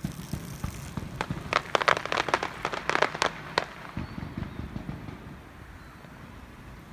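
Fireworks going off: a quick run of sharp pops and crackles, most of them between about one and four seconds in, over a steady low background rumble.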